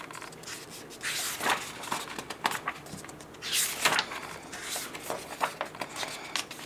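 Paper workbook pages being turned and handled: several soft rustling swishes of paper, a few seconds apart.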